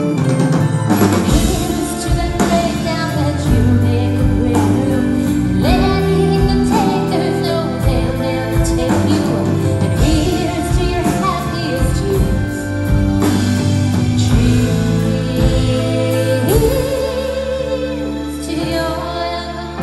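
Live pop band playing, with a woman singing lead and backing vocalists over electric guitars, bass and drums, heard from within the audience.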